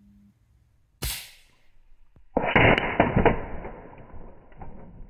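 A single shot from a .30-calibre Daystate Alpha Wolf PCP air rifle about a second in. Then, heard close to the target, a 30-calibre pellet strikes a steel HFT knock-down target and the target clatters and rattles down over about two seconds, the sign of a hit in the kill zone.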